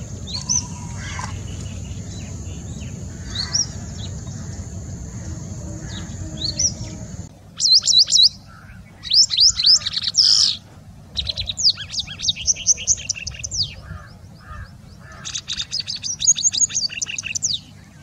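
Two bird recordings in turn: for about the first seven seconds, a few thin, high chirps over a low hum and hiss; then a loud, varied song of quick sweeping whistles and rapid trills, the song of a White-browed Wagtail (large pied wagtail).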